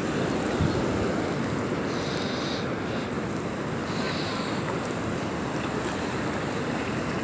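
Steady rushing noise of surf on a beach, with wind buffeting the microphone.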